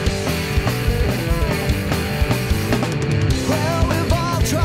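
Background music: a rock song with a steady, driving beat.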